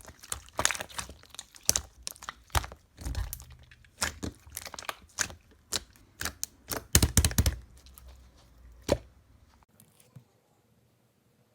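Slime being squeezed and pressed by hand, making irregular crackling, clicking and popping sounds that stop about ten seconds in.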